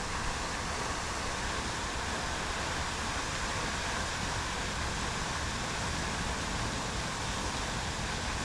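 Wind blowing across the microphone: a steady rushing noise with an uneven low rumble underneath.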